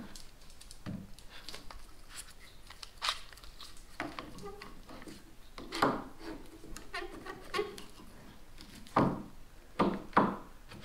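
A plastic one-handed bar clamp being positioned and tightened over wooden rail strips: scattered clicks and handling noise, with several sharper knocks, the loudest in the last two seconds.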